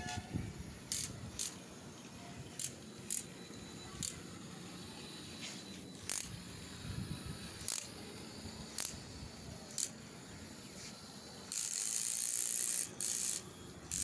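Small DC gear motors of a homemade remote-control tractor running, with sharp irregular clicks about once a second and a stretch of hiss near the end.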